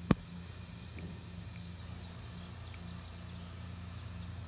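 A single sharp click just after the start, over a steady low hum with a low drone that pulses on and off about twice a second.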